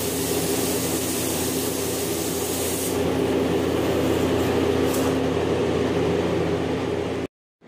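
Paint spray gun hissing as it sprays paint, stopping about three seconds in, over a steady motor hum. The sound cuts out abruptly near the end.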